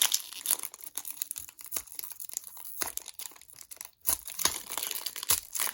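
A trading card pack's wrapper being torn open and crinkled by hand, a run of irregular crackles and sharp rips with a brief pause about four seconds in.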